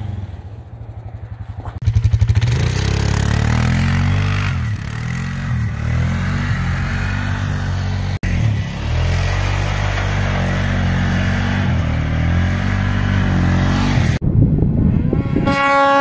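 Small off-road vehicle engines running and revving over several short clips joined by abrupt cuts: an ATV engine passing at first, then a louder engine revving up and down. Near the end a snowmobile engine gives a higher, steady whine.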